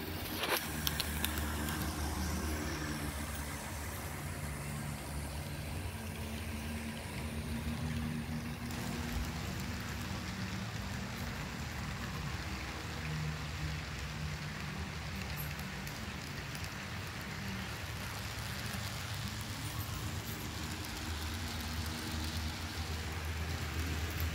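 HO scale model freight train running past, pulled by CP F7 A and B diesel units: a steady rumble of metal wheels on the rails with a low, even hum.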